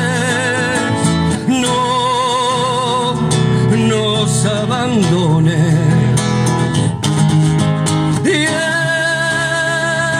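A man sings long held notes with a wavering vibrato over a strummed acoustic guitar.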